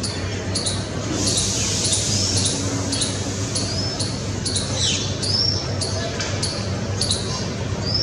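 Small birds calling: short high chips repeating about twice a second, with a few brief rising whistled notes, over a steady low hum.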